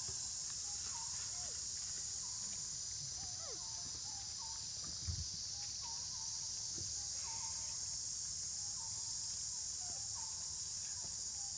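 Steady high-pitched drone of a chorus of insects. Over it come short repeated chirps and a few falling squeaks from animals, with a soft thump about five seconds in.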